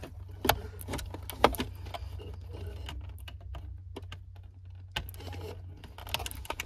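Plastic clicks and rattles of a wiring-harness connector being handled and pushed into the back of a car radio, with a few sharp clicks in the first second and a half and more near the end.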